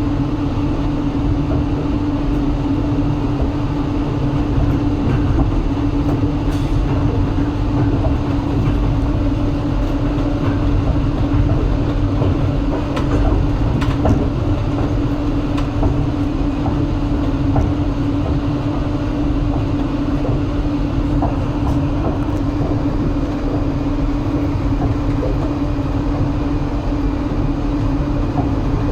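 Train wheels rolling on the rails at speed, heard from inside the carriage: a steady rumble with a constant hum and scattered light clicks.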